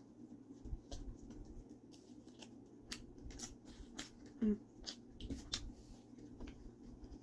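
Close-up mouth sounds of a person chewing a bite of margherita pizza: a run of small wet clicks and crunches from the crust, with a short throat sound about four and a half seconds in.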